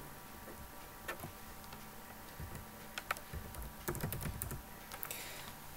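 Computer keyboard keystrokes, faint and scattered, with a quicker run of key taps about four seconds in.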